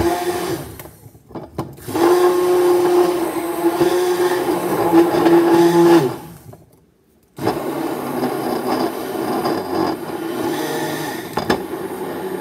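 Handheld immersion blender whirring in a beaker of watermelon juice, blending it into lemonade. The motor runs steadily, cuts out briefly about a second in, stops for about a second just past the middle, then starts up again.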